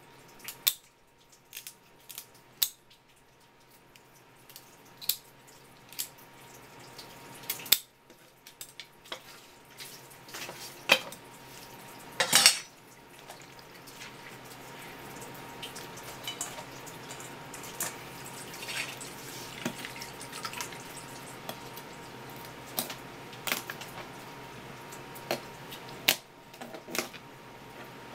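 Kitchen scissors snipping through the shell of a swimming crab's legs, a string of sharp clicks and cracks, over a thin stream of tap water splashing onto a wooden board. A louder clatter comes about twelve seconds in.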